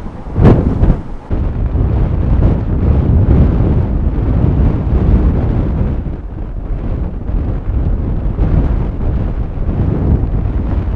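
Strong blizzard wind buffeting the microphone: a loud, uneven low rumble with a couple of sharp gust hits in the first second.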